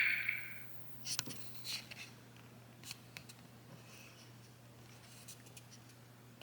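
A loud sound tails off in the first half-second, then a few faint clicks and light handling noises from a toy figure, over a steady low hum.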